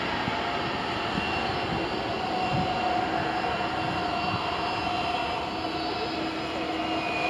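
Jet engines of a KLM Boeing 737 landing, heard from across the airfield: a steady rushing whine with a faint held tone that stays even as the aircraft touches down.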